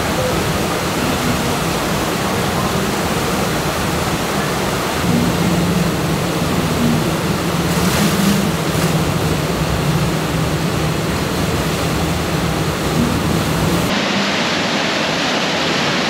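Water rushing and churning through a river rapids ride channel, a loud, steady rush of white water, with a low steady hum beneath it. About fourteen seconds in the sound changes abruptly to a duller rush.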